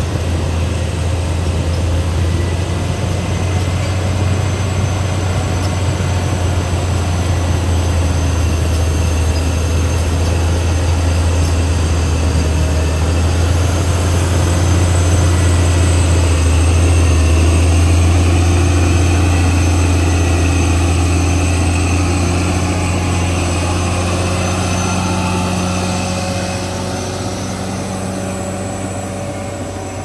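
CAT D6R XL crawler bulldozer's diesel engine running under load as the blade pushes a pile of soil, with a strong low drone. It grows louder toward the middle and fades over the last few seconds as the dozer moves off.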